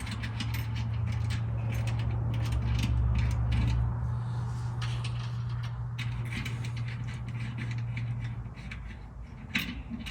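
Clicking, scraping and rattling of hand tools and metal parts while a battery cable is being hooked up under a truck, over a steady low hum that stops about nine seconds in.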